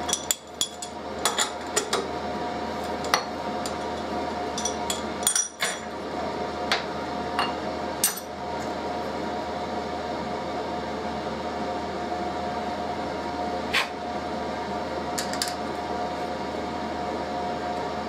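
Metal tools and parts clinking and knocking as they are handled and set down on a steel machine table: a cluster of sharp clinks in the first half, then two more near the end. Under them, the steady hum of a workshop heater running full blast.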